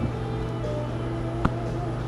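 Hands rummaging through caps in a clear plastic storage tote, with a sharp knock against the bin about one and a half seconds in, over a steady low hum.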